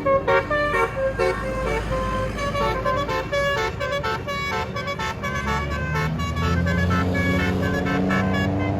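A tour bus's basuri telolet horn plays a quick tune of short, stepped notes over the bus engine running. A deeper sustained tone swells underneath in the last few seconds.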